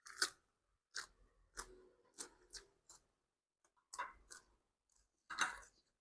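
A person chewing crunchy food close to the microphone: a string of short, separate crunches at uneven intervals, roughly one or two a second.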